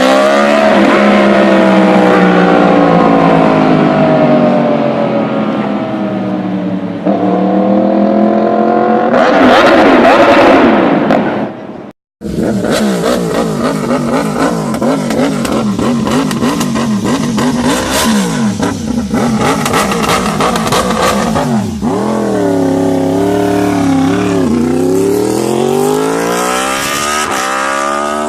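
Yamaha R1 sportbike's inline-four engine at high revs through its exhaust. The revs fall for the first several seconds, then climb hard to the loudest point around ten seconds and break off suddenly. After the break a busy, warbling engine note follows, and near the end the pitch climbs again with short dips, like quick gear changes under hard acceleration.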